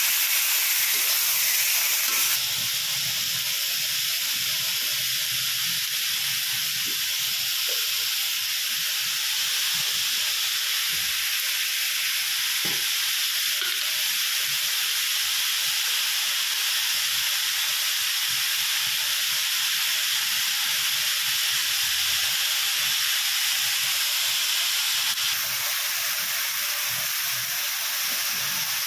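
Sliced bitter gourd and onions sizzling steadily as they stir-fry in a wok, with a few light scrapes and knocks of the spatula against the pan.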